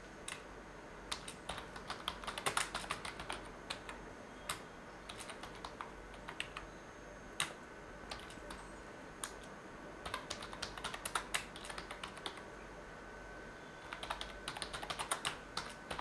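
Computer keyboard typing: faint key clicks in quick runs, with short pauses between the runs.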